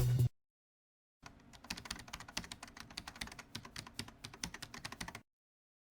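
Keyboard typing: rapid, irregular key clicks for about four seconds. They start about a second in and cut off abruptly.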